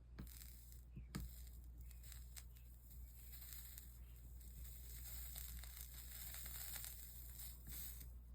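Soldering iron sizzling and crackling faintly as it melts solder over flux along the copper-foiled seams of a stained glass panel, a few light clicks in the first second and a half, the crackle growing from about three seconds in.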